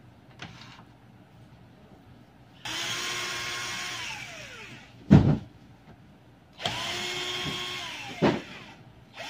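Cordless drill-driver backing out the fuser's screws in two runs of about two seconds each, the motor's pitch winding down as each run stops. A sharp knock follows each run.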